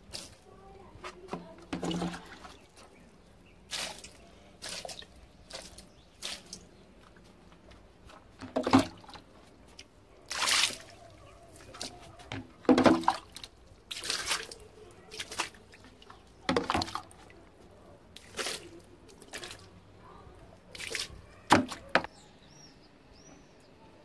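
Water being splashed and poured over potted plants and the tiled floor, in short irregular splashes about every second or two.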